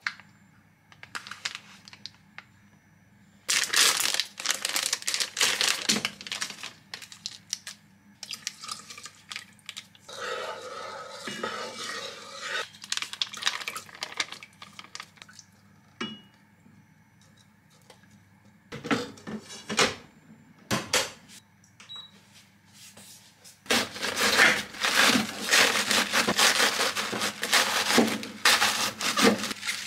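Kitchen prep sounds: bouts of crinkling and clattering, liquid poured from a plastic pouch into a rice cooker's inner pot, then a knife crunching through a large head of cabbage on a cutting board in fast, repeated cuts near the end.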